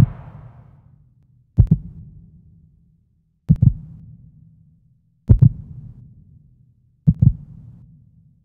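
Heartbeat sound effect: slow, loud double thumps (lub-dub), one pair about every two seconds, five times, over a low steady hum.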